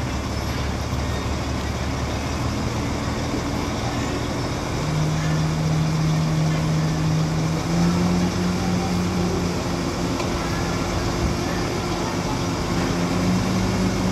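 Hyundai dump truck's diesel engine running while its tipper bed is raised, the engine speeding up about five seconds in and again near eight seconds to drive the hydraulic hoist, then holding steady.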